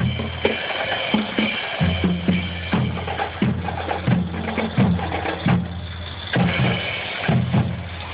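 Marching band playing as it passes: drums beat a steady march rhythm over held horn notes.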